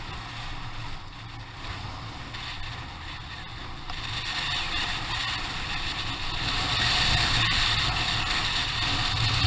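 Adventure motorcycle riding, with a low engine hum under rushing wind noise on the microphone; it grows louder about four seconds in.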